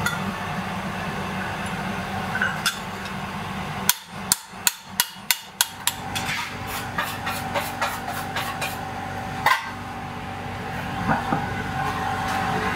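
Blacksmith's hammer striking hot steel on an anvil: a quick run of about seven sharp, ringing blows, roughly three a second, then lighter taps and a few single blows. A steady hum runs underneath.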